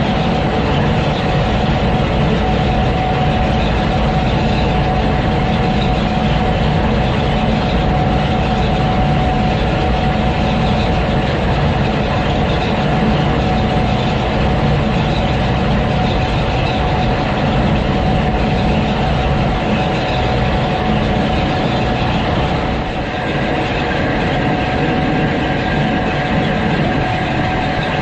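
Gleaner S98 combine running steadily under load while picking up and threshing an oat swath: a constant engine and machinery drone with a steady high whine over it.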